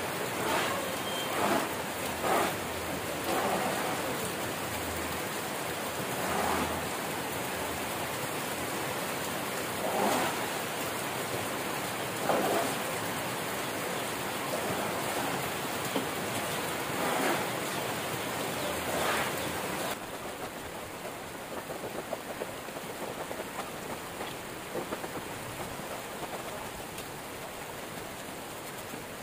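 Hot oil sizzling in a wok as krupuk crackers fry, swelling louder every few seconds as they are stirred, and dropping in level about two-thirds of the way through.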